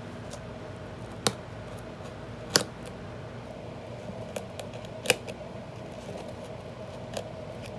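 Sharp snips of a blade cutting through an old book's binding: three loud ones a second or two apart and a couple of fainter ones, over a steady low hum.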